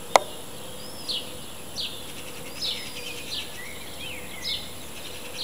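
High-pitched chirps repeating evenly about every three-quarters of a second, with a few calls sliding in pitch in between. One sharp click comes just after the start.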